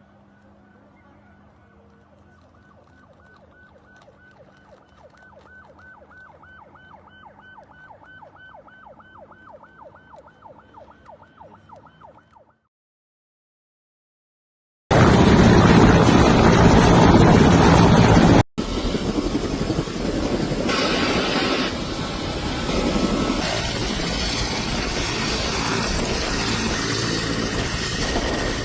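A faint emergency vehicle siren in a fast yelp, several cycles a second and slowly growing louder, cuts off about twelve seconds in. After a couple of seconds of silence, a loud, steady rushing noise starts abruptly and eases down somewhat a few seconds later.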